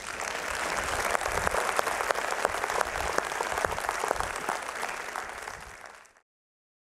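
An audience applauding, a dense patter of many hands clapping. It tails off near the end and then cuts off abruptly to silence.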